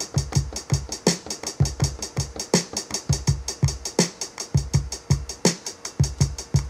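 Simple programmed drum-machine beat from the Maschine plugin: a closed hi-hat ticking steadily about five times a second over kick drums that drop in pitch, with a snare hit now and then.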